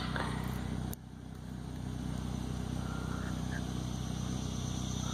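Steady low hum of a running motor or engine, with a sharp click about a second in where the hum briefly drops in level before recovering.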